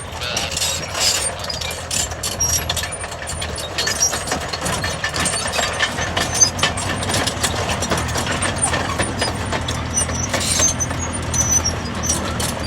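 Bulldozer engine running with scattered clicks, clanks and high-pitched squeals, the engine note growing stronger about four seconds in.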